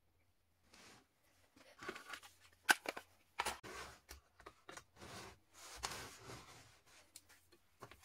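Hands handling a wooden drill stand and a flexible-shaft attachment: irregular clicks, light knocks and rustling, with one sharp click a little under three seconds in.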